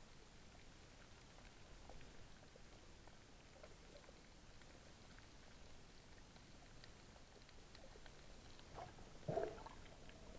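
Near silence under water, heard through a submerged camera: faint scattered ticks and crackles, and one short muffled burst about nine seconds in.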